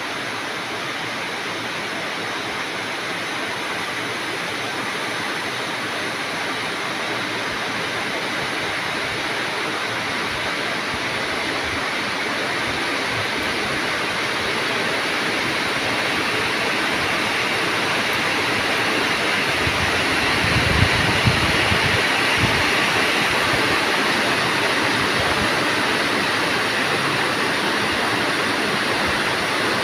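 Rain falling hard, a steady hiss that grows gradually louder as the shower arrives. A few low thuds come about two-thirds of the way through.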